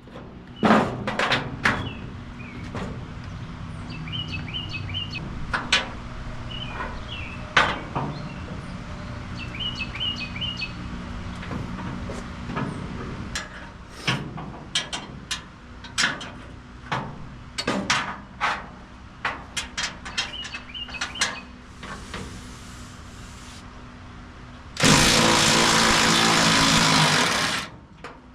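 Scattered knocks and clicks of hand work on the 1928 Ford Model A's body, with birds chirping now and then over a low steady hum. Near the end a loud, even rushing noise lasts about two and a half seconds, then cuts off.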